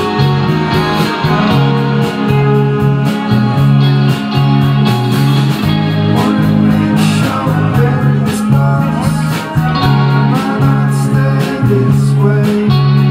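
Live band music: electric guitars over a repeating bass line and a steady drum beat.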